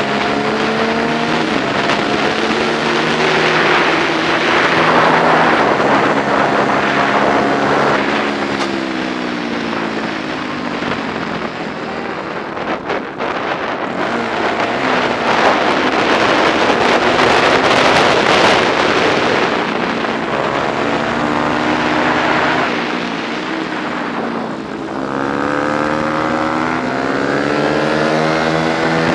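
125 cc four-stroke prototype race motorcycle engine, heard from onboard, revving up through the gears with a stepped rising pitch. It falls away twice as the rider backs off, then climbs again, with heavy wind rush at the fastest stretches.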